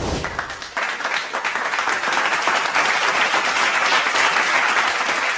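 Applause: many people clapping together, a dense patter of hand claps that sets in suddenly at the start and holds steady.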